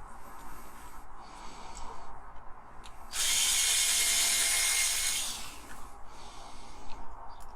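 Small electric drill grinding the head off a diecast model's base-plate rivet: a few short, quieter bursts, then a steady, louder run of about two seconds starting about three seconds in.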